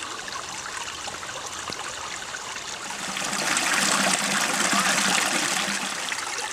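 A small rocky creek running, water splashing and trickling over a little cascade between boulders, growing louder about halfway through.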